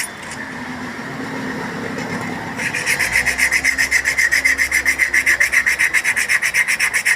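Abrasive paper rubbed in quick back-and-forth strokes over a motorbike drum-brake shoe lining, a rhythmic rasping several strokes a second, to take off the glazed black surface down to the lining's own colour. The strokes stop for about the first two and a half seconds, then resume.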